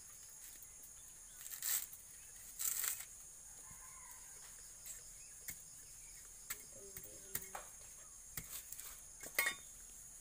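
Dry coconut husk being torn and stripped by hand, the fibres ripping in two short scratchy bursts early on, followed by a few sharp clicks as husk pieces snap and are cut.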